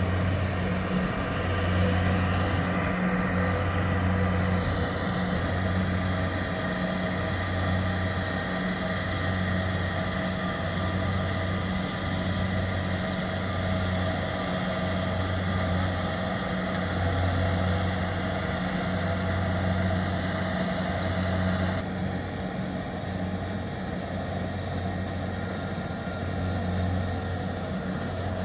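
Kubota DC-70 Plus combine harvester running steadily with its diesel engine and machinery. A low hum swells and fades every couple of seconds under steady higher whines, and the sound drops a little about three quarters of the way through.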